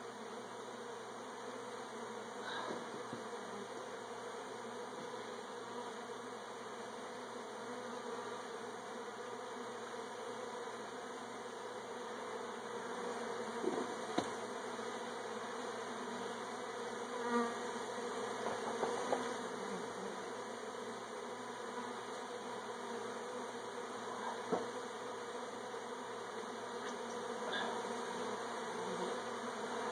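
Honeybees buzzing steadily around an opened hive of combs, with a few short knocks partway through and again later on.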